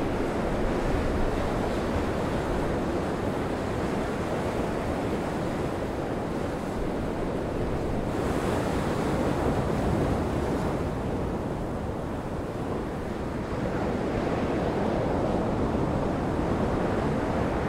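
Heavy storm surf breaking over rocks in a steady rush, with gale wind buffeting the microphone.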